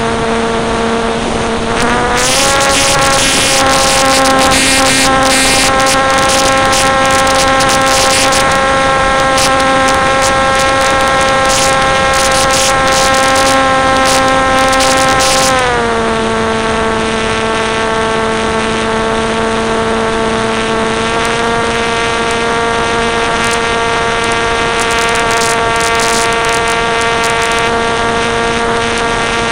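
Model aircraft's motor and propeller running steadily, heard up close from an onboard camera. The pitch rises a step about two seconds in as the motor speeds up, holds, then drops back about halfway through.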